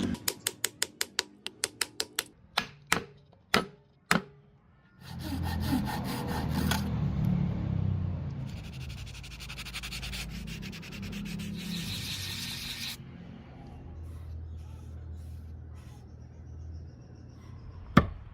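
Hand work on wood: a run of sharp taps that slow and thin out over the first few seconds, then several seconds of sanding or rubbing on wood over a low hum, and one sharp knock near the end.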